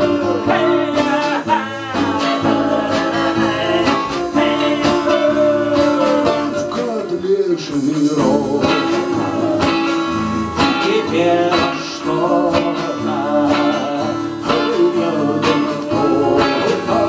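Live acoustic folk band playing: strummed acoustic guitar over bass guitar, with violin, and a melody line that bends in pitch.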